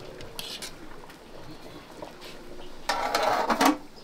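A metal spoon scraping in a large aluminium cooking pot, then a louder clatter near the end as an aluminium pot lid is handled and set on the pot.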